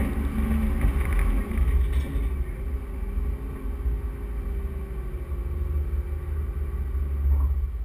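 Four-wheel-drive vehicle driving over soft sand dunes, its engine running under load with a strong low rumble. The engine note eases off near the end.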